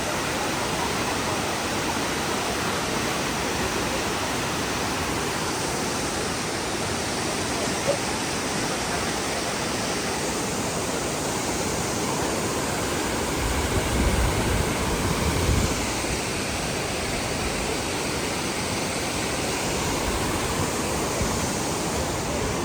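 Waterfall: a steady, even rush of falling water, with a brief low rumble swelling about two-thirds of the way through.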